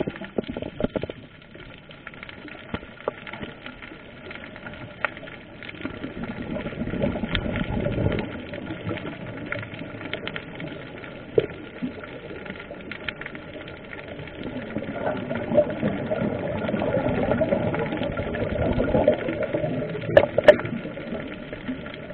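Muffled underwater noise picked up through a camera's waterproof housing during a scuba dive: a swelling, gurgling rumble with scattered sharp clicks, and a short cluster of clicks near the end.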